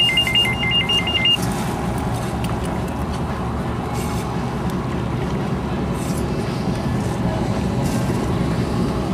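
Mobile phone ringing, a rapid trill alternating between two high tones that stops about a second and a half in. Under it, a steady low rumble, most likely the boat's engine.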